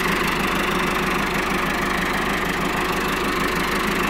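Massey Ferguson 385 tractor's four-cylinder diesel engine idling steadily.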